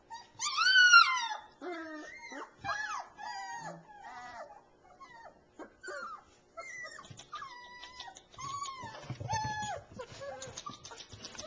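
Three-week-old Alaskan Malamute puppies whimpering and whining: one loud cry that rises and falls about half a second in, then a string of shorter, high whines.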